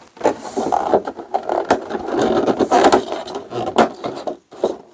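Packaging being handled: a vacuum-formed plastic insert and cardboard box scraping and rustling, with irregular small knocks and clicks.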